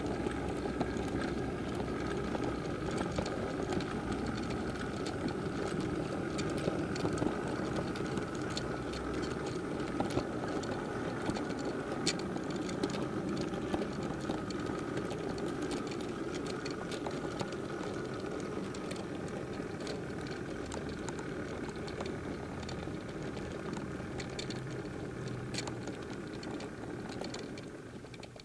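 Model goods train running along the track, heard from one of its wagons: a steady rattling rumble of wheels on rail with a faint whine, and scattered sharp clicks as the wheels cross rail joints and points. The noise falls off near the end as the train slows.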